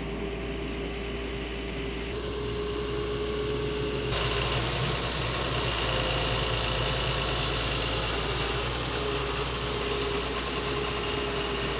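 Doosan DX140 excavator's diesel engine running steadily. About four seconds in it gets louder and a high whine joins it.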